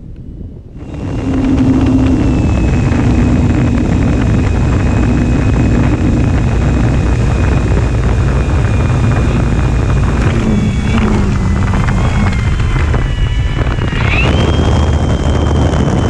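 High whine of a model plane's electric motor, shifting up and down in pitch with the throttle in the last few seconds, under heavy rumbling wind noise on the microphone that starts suddenly about a second in.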